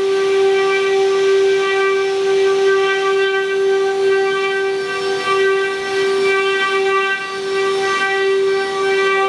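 The twelve spindles of a multi-head woodworking CNC router running together, a steady high-pitched whine with a rushing cutting noise as the bits carve into wood panels.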